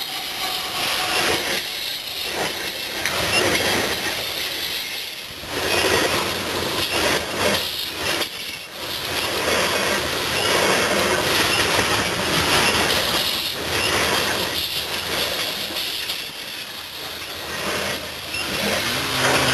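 Loaded coal cars rolling past on the rails: a continuous rumble and rattle of wheels on track that swells and fades, dipping briefly about five and eight seconds in.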